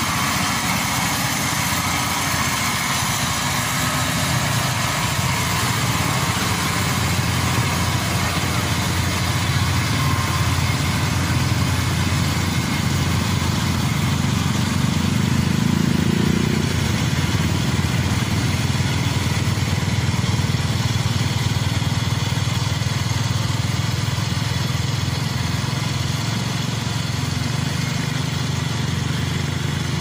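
Diesel engine of an Inari crawler combine harvester running steadily as the machine drives on its tracks.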